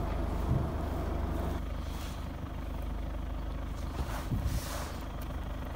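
Vehicle engine idling steadily with a low, even hum, heard from inside the vehicle through an open window.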